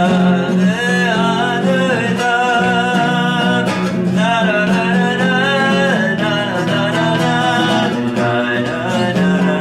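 A man singing a slow song while strumming an acoustic guitar, his voice gliding over steady guitar chords.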